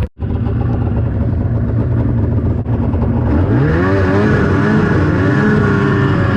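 Arctic Cat ZR 600 snowmobile's two-stroke engine running steadily after a brief break at the very start, then revving up and down from a little over three seconds in.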